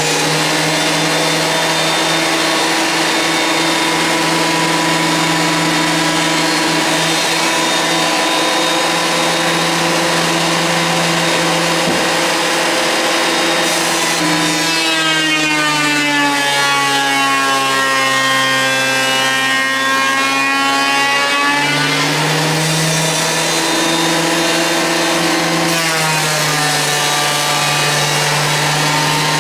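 Benchtop thickness planer running steadily. About halfway through, its motor note sags and then climbs back as the cutterhead takes a cut through a board, with a shorter dip near the end.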